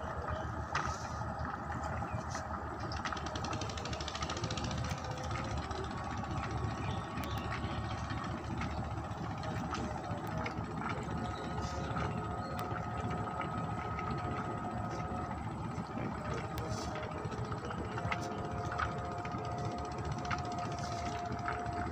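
A small boat engine running steadily with a fast, even mechanical rhythm, and a few higher steady tones that come and go.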